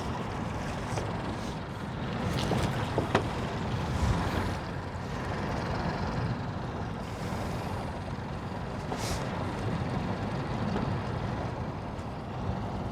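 Steady low rumble of a boat idling on the water, mixed with wind noise, with a few faint knocks.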